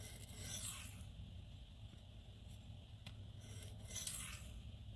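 Civivi Ortis knife's 9Cr18MoV steel blade scraping across a whetstone in two strokes, one near the start and one about three and a half seconds in. The edge is being traded back and forth on the stone to work off a large burr.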